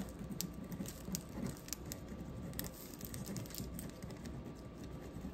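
Permanent marker writing on a paper sheet: faint, irregular scratches and small taps of the pen, with light paper rustling.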